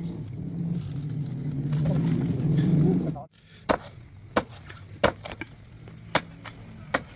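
A low engine hum growing louder stops abruptly. It is followed by a series of about seven sharp, irregular knocks: a blade chopping into a fresh coconut's husk.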